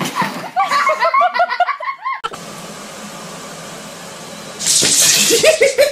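A person laughing in quick repeated bursts for about two seconds. After that comes a steady hiss of background noise, and near the end a loud noisy stretch with short rising and falling tones.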